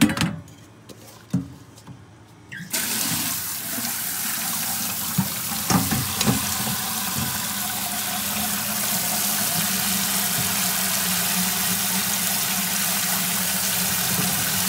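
Kitchen tap running hard onto salted cabbage, carrot and radish in a plastic colander in a steel sink, rinsing the salt off; it comes on about three seconds in, after a few knocks as the vegetables are tipped from a steel bowl into the colander.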